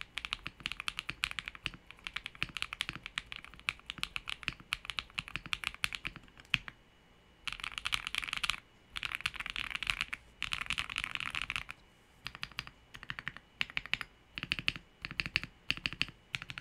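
Typing on an MW65 mechanical keyboard with Halu Halo switches, a polycarbonate plate and Akko ASA low-profile keycaps. A fast steady run of keystrokes stops about a third of the way in. Three dense flurries of key presses follow, then a pause, then shorter clusters of keystrokes.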